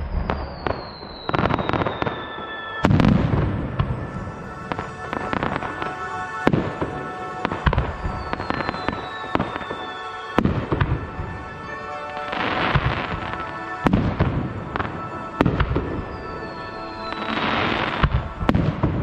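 Fireworks display: repeated booms and crackling bursts of aerial shells, with three falling whistles, over background music with held notes.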